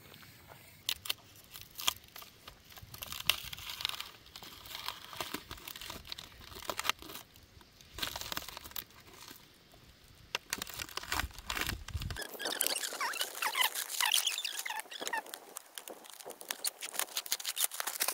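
Clear plastic shrink wrap crinkling and tearing as it is cut and pulled off a coil of radiant-heating tubing, with many small clicks and rustles.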